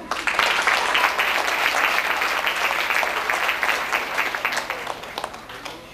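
Audience applauding, many hands clapping at once. It starts suddenly and dies away gradually over about five seconds.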